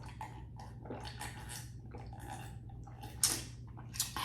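Wet, squishy eating sounds close to the microphone: mussel meat and seafood-boil sauce being chewed and handled, with scattered small crackles and two sharper clicks near the end.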